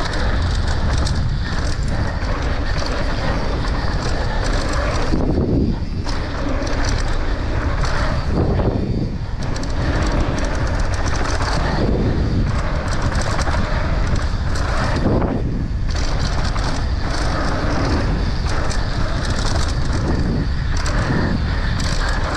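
Wind rushing over the camera microphone and tyres running on hard-packed dirt as a downhill mountain bike descends a jump trail at speed, with the bike rattling over the rough ground.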